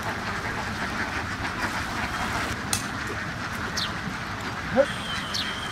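A large flock of domestic ducks quacking together in a dense, steady chatter.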